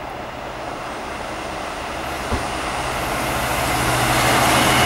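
Class 66 diesel freight locomotive, its EMD two-stroke V12 engine running under power as it approaches, growing steadily louder together with the wheel and rail noise of the wagons behind it. A thin, high wheel squeal starts near the end.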